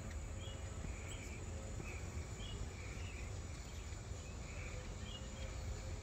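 Evening insect chorus: a steady high-pitched drone with softer chirps repeating irregularly about every half second to a second, over a constant low rumble.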